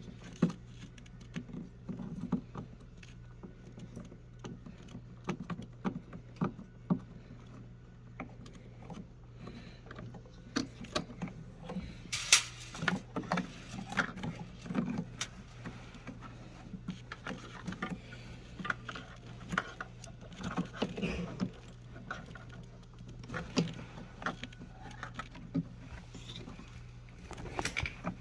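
Irregular clicks, knocks and light rattles of small hard objects being handled, over a steady low hum.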